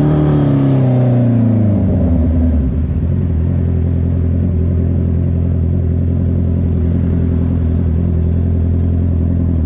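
Honda CB650R's inline-four engine through a loud exhaust: the revs fall away over the first two seconds, then it runs steadily at low revs.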